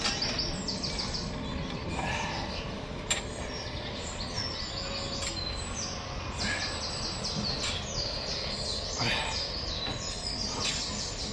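Several birds chirping and singing, many short repeated calls, over steady outdoor background noise.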